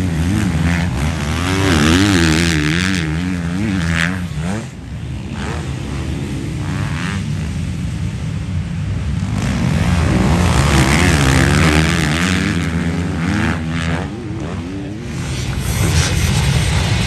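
Motocross dirt bike engines revving hard as riders race past, the pitch climbing and dropping again and again with throttle and gear changes, fading between passes. Near the end, the steadier sound of many bikes running at once.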